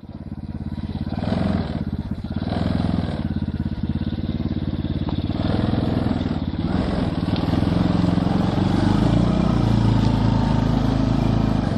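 Small engine of a homemade mini car running on held throttle on a first attempt. It swells up over the first second or so and then runs on steadily.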